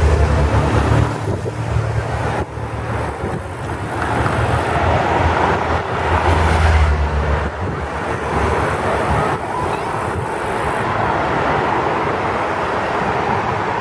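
Race convoy cars driving past close by one after another, with engine and tyre noise on the road. Louder passes come at the start and again about six to seven seconds in.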